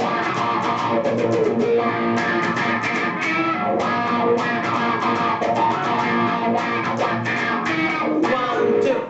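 Funky electric-guitar music playing an instrumental passage with no singing.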